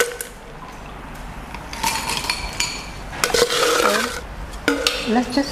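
Ice cubes scooped from a stainless steel ice bucket and clinking into a glass, in two clattering bursts about two and three seconds in.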